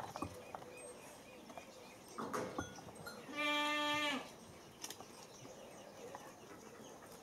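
A single drawn-out animal call about halfway through, lasting about a second at a steady pitch, with a few faint scuffs around it.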